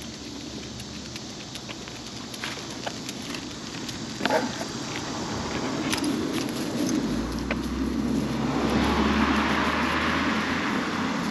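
A motor vehicle driving past, its engine and tyre noise swelling over the last few seconds. Scattered light clicks run through it, with a sharper one about four seconds in.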